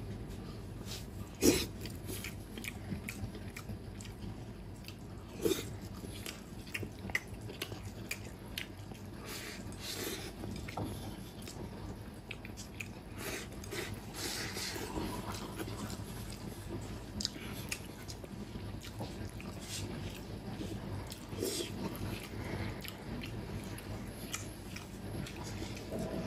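A man eating close to the microphone: wet chewing and smacking on mouthfuls of braised beef and rice, with scattered sharp clicks, two louder ones in the first few seconds. About halfway, a denser stretch as he slurps and scoops rice straight from the bowl.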